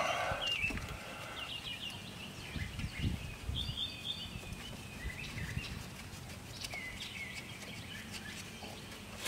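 Outdoor ambience with birds chirping now and then, and faint low knocks from hand work on an engine as a bolt is started into a water pump.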